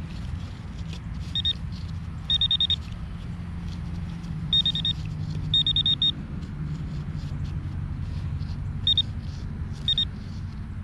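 Garrett Pro-Pointer AT pinpointer beeping in short bursts of quick, high-pitched beeps, six times, as it is probed into a dig hole and picks up metal. A low steady rumble runs underneath.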